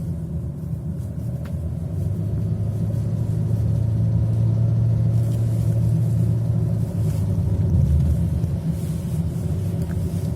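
Chevrolet Captiva 2.2 diesel engine pulling under load, growing louder a few seconds in, with a clatter from the engine bay that keeps time with the revs. The owner says it sounds from outside like exhaust gas leaking somewhere.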